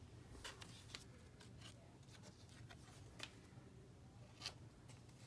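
Near silence: room tone with a handful of faint, scattered ticks and rustles of trading cards being handled.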